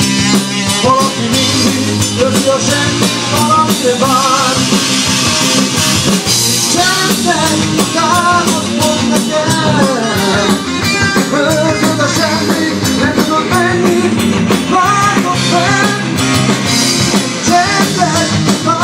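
Rock band playing live: a singer over electric guitars and a drum kit, loud and continuous.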